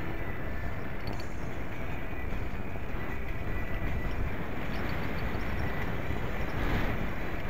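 Riding noise on a bicycle-mounted mini action camera: wind rushing over the microphone and steady tyre rumble on the paved path.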